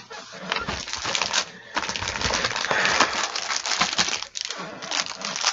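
Plastic packaging crinkling and rustling as it is handled: a dense run of crackles that eases briefly about four seconds in.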